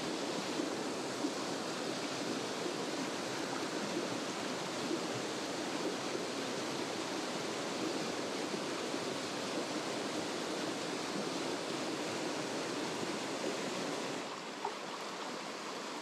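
Steady rush of white water tumbling down a rocky mountain-stream cascade. Near the end it drops to the gentler sound of a shallow riffle.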